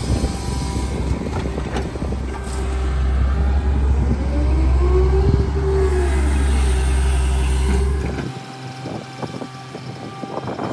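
Komatsu PC200 hydraulic excavator's diesel engine running under load, with a hydraulic whine that rises and then falls in pitch as the arm works, and scattered clatter of rock and soil. About eight seconds in the deep engine drone drops away, leaving a lighter engine sound and clatter.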